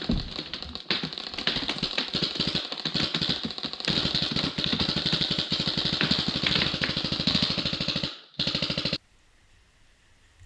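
Rapid paintball fire, a fast even run of sharp cracks as paintballs break against a wooden bunker. It cuts off suddenly about nine seconds in, leaving it nearly quiet.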